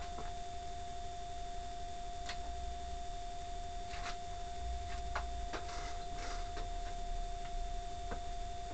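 A steady, high-pitched electronic whine with a low rumble under it, broken by a sharp click at the very start and a handful of lighter clicks and taps scattered through.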